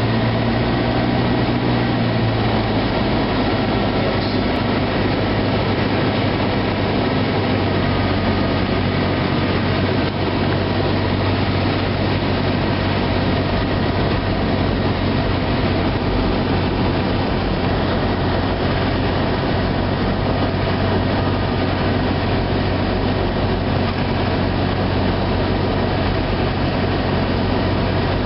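A Cessna 172's piston engine and propeller droning steadily, heard inside the cabin while descending on approach to land. The drone's pitch drops slightly about two seconds in.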